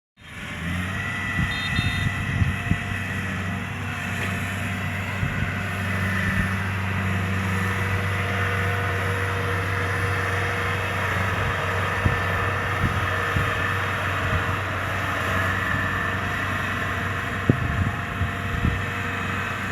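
Kubota DC-70 combine harvester's diesel engine and machinery running steadily while harvesting rice, a constant hum with a few sharp knocks, two of them near the end.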